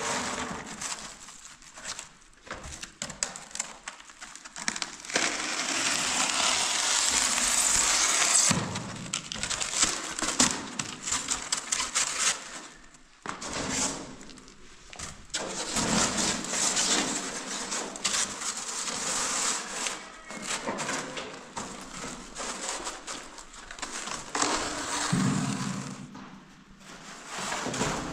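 Polystyrene foam board being cut and handled, giving a rasping, crackling noise. It comes in stretches of several seconds, the longest and loudest a few seconds in, with short clicks and brief pauses between.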